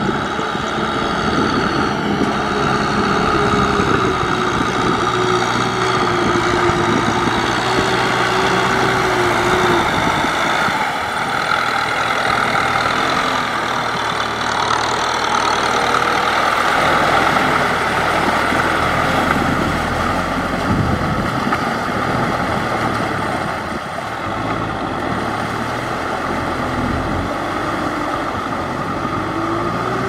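Farm tractor engines running steadily while tilling a wet, muddy field, with the engine note shifting about ten seconds in and again later.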